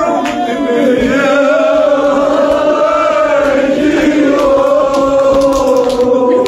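Men's voices chanting a Kashmiri marsiya (Shia mourning elegy) together, holding one long drawn-out note that wavers slightly.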